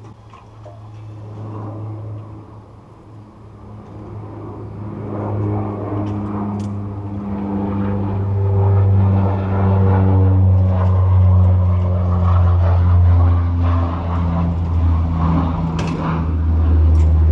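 A loud low mechanical hum that grows louder, its pitch shifting in small steps, with light clicks and clatter as a metal wheeled cart is rolled over concrete.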